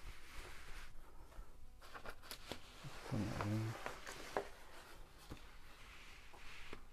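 Quiet handling noise from a camera being moved and repositioned: scattered light clicks and rustles, with a short low hum about three seconds in.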